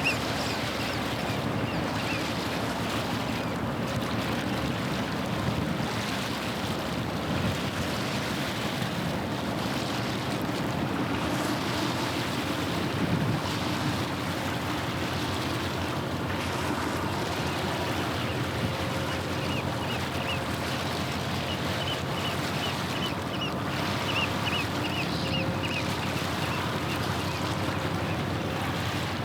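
Water washing against the shore in the wind, under the low, steady drone of a passing ship's engine. A bird gives short repeated calls about two-thirds of the way through.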